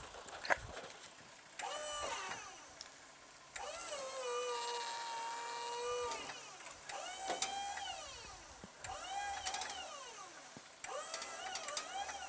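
Wood-Mizer sawmill's hydraulic pump whining in a series of pulls as the log-loading controls are worked: each whine rises, holds and dips in pitch, the longest holding steady for about two and a half seconds in the middle.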